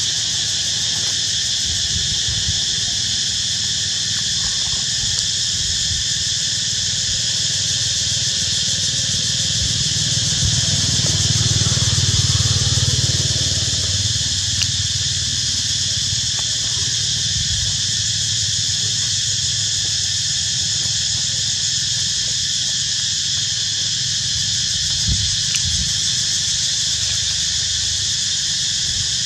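A steady, high-pitched chorus of insects buzzing without a break. A low rumble swells for a few seconds near the middle.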